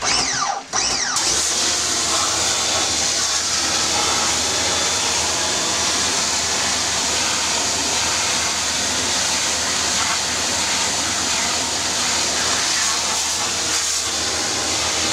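Pressure washer jet blasting clay out of a mineral cavity: a loud, steady hiss of high-pressure water spraying onto rock and clay. It comes on fully about a second in.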